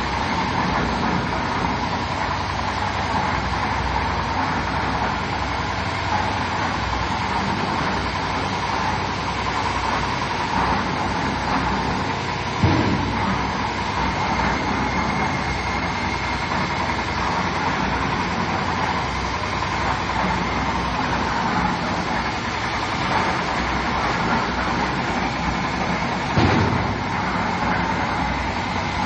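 Concrete mixer machine running with a steady mechanical noise, broken by a sharp knock about 13 seconds in and another near the end.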